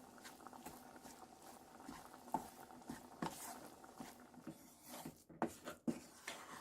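Irregular light taps and clicks over a faint steady hum, the taps growing sharper and more frequent in the second half.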